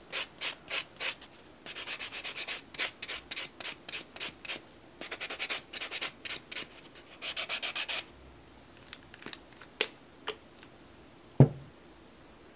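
A white sponge nail buffer block rubbed quickly back and forth over the fingernails, buffing the nail surface, at about five strokes a second in several short runs with brief pauses. The buffing stops about 8 seconds in, followed by a few light clicks and a single sharp knock near the end.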